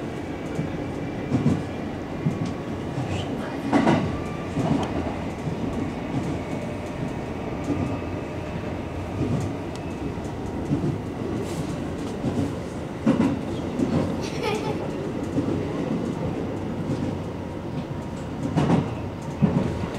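JR Yumesaki Line electric commuter train running at speed between stations, heard from inside the train: a steady running rumble with a few sharp knocks as the wheels pass over the track.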